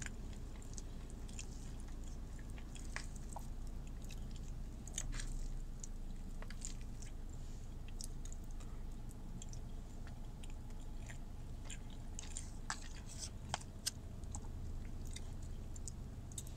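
Close-up chewing of a soft pita sandwich with hummus, with many small wet clicks and smacks of the mouth scattered throughout. A low steady hum runs underneath.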